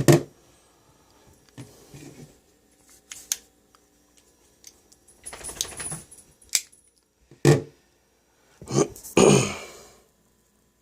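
Small metal pocket items being handled: scattered clicks, clinks and jingles, with a few short rustles as the gear is picked up and set down.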